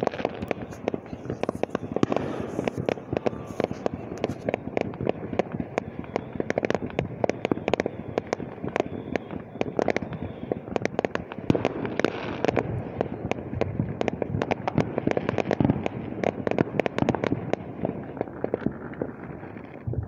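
Fireworks display going off across the water: a continuous, rapid run of bangs, pops and crackles, several a second, without a break.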